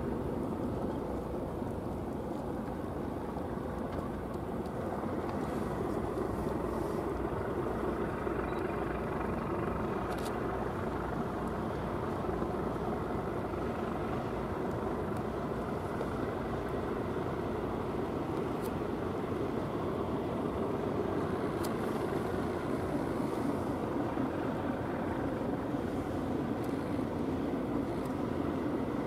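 Steady diesel rumble of harbour tugboats pushing and towing a large sailing ship off its berth, growing slightly louder in the second half.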